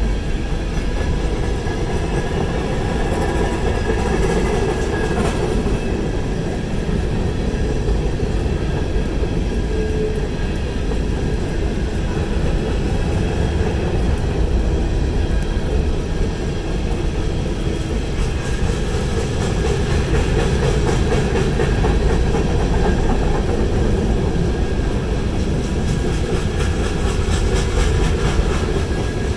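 Freight train cars rolling steadily past: tank cars and covered hoppers running over the rails with a continuous low rumble of wheels on track.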